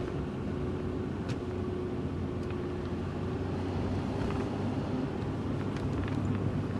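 Steady low road and engine hum inside a moving car's cabin.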